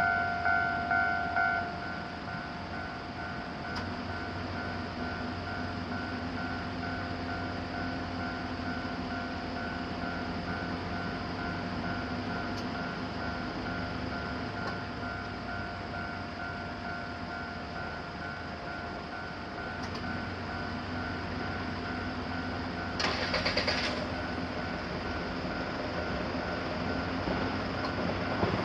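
Japanese railroad crossing warning bell ringing its rapid two-tone kan-kan at about two strokes a second, stopping about a second and a half in. A steady rail-traffic rumble with a low hum carries on after it, with a short rattling burst about 23 seconds in.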